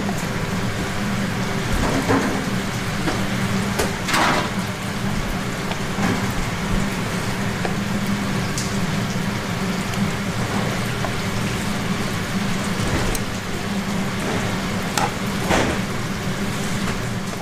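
Steady hissing noise over a low hum, with a few light clicks and scrapes of metal tongs turning sticky, sauce-coated fried chicken in a paper cup.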